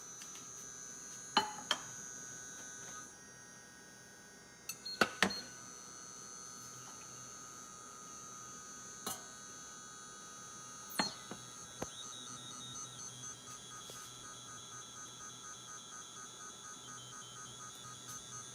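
Frigidaire FGIC3066TB induction cooktop giving off a steady high-pitched whine, with a few sharp clicks and knocks. About two-thirds of the way through, the whine starts pulsing on and off roughly twice a second.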